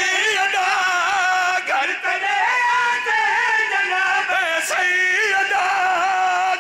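A man singing a verse in long, wavering held notes into a microphone, amplified over a PA system, with short breaths between phrases.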